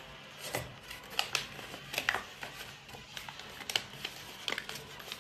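A sheet of paper being folded and creased by hand, giving irregular crackles and crinkles.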